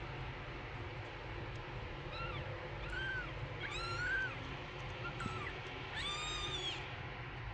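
Kittens meowing: a string of short, high-pitched mews starting about two seconds in, then one longer, louder meow near the end.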